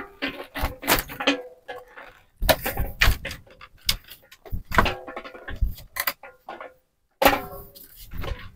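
Large metal basin being picked up and carried, its handles clinking and the basin clattering in a run of irregular knocks and rattles, with a small plastic mug knocking against it.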